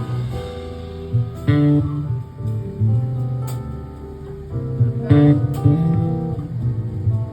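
Instrumental passage of a song, no singing: guitar playing plucked and strummed chords over a bass line, with fresh notes struck about a second and a half in and again about five seconds in.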